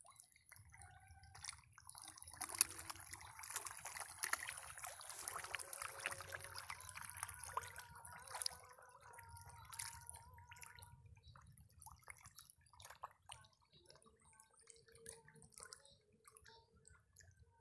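A crowded shoal of fish churning at a pond's surface: a dense patter of small splashes, busiest in the first half and thinning out later.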